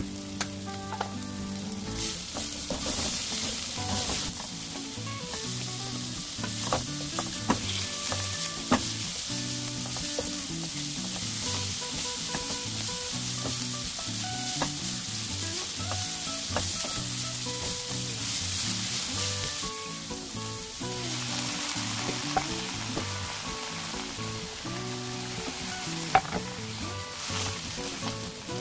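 Ground pork frying in oil with sliced red chilies, garlic and ginger in a nonstick wok, sizzling steadily while stirred with a silicone spatula; the sizzle eases a little after about twenty seconds. Light background music plays under it.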